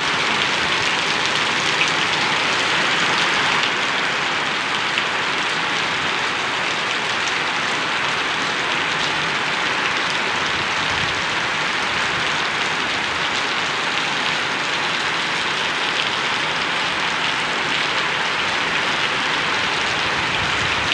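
Heavy rain pouring down on a waterlogged street: a steady, dense hiss with scattered drop ticks.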